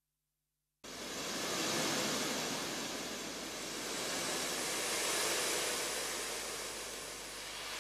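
Sea waves washing: a steady rush of surf that starts suddenly about a second in, then swells and eases twice.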